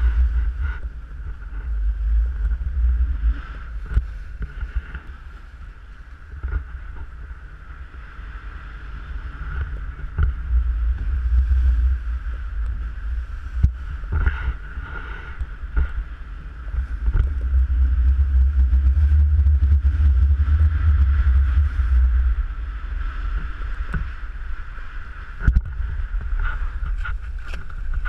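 Wind buffeting the microphone in gusts, loudest about two-thirds of the way through, over a motor boat's engine with a steady high whine.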